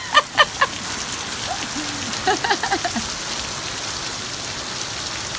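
Heavy monsoon rain pouring down, a dense, even hiss of rain on the ground and surfaces.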